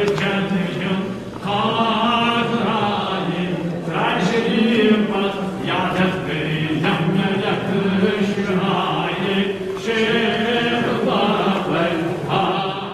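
A group of voices chanting together in a repeating devotional recitation, fading out near the end.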